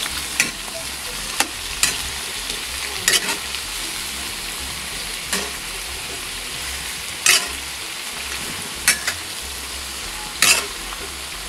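Raw chicken feet frying in hot oil in a honeycomb-textured metal wok, with a steady sizzle. A metal utensil stirs them and knocks or scrapes against the pan about eight times, once every second or two.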